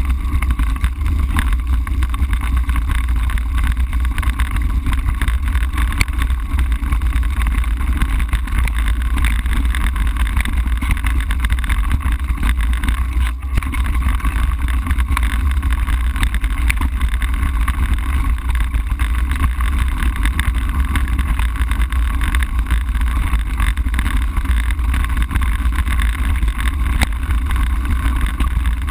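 Steady low rumble of wind buffeting and gravel vibration on the microphone of a camera riding on a bicycle over a rough gravel track. The deep rumble is the loudest part, and it dips briefly about 13 seconds in.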